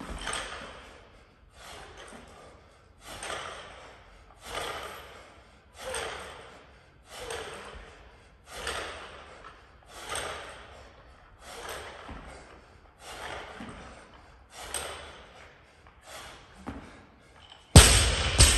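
A lifter's sharp, forceful breaths, about one every second and a half, through a set of barbell shoulder-to-overheads. Near the end the loaded 61 kg barbell is dropped to the floor: a loud crash as the weight plates land, then a second knock and a short rattle as they bounce.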